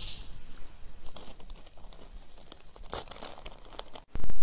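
Butter paper and carbon paper rustling and crinkling under fingers as they are handled and pinned along the edge, in short scattered rustles. Near the end, after a brief dropout, a loud low thud.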